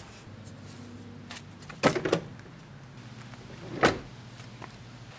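Masking tape being pulled and torn while masking off a car door panel: two short rips about two seconds apart, over a faint steady hum.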